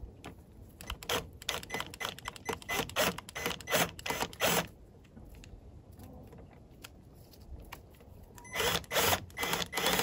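Cordless drill run in short spurts on a screw in a tube bird feeder's base, giving a rapid run of clicks for about four seconds, a pause, then more clicks near the end. The screw won't catch because the drill is turning the wrong way.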